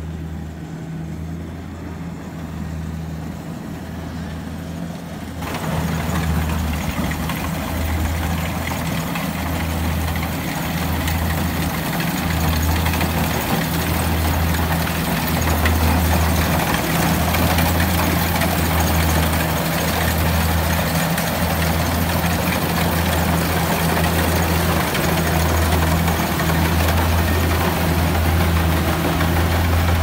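Kubota crawler combine harvester running as it cuts ripe rice, a steady heavy engine drone with a low pulsing throb. About five seconds in it turns suddenly louder and noisier, then keeps running steadily.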